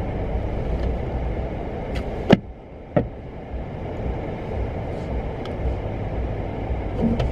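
Steady low road and engine rumble inside a moving car's cabin, with two sharp clicks or knocks about two and three seconds in.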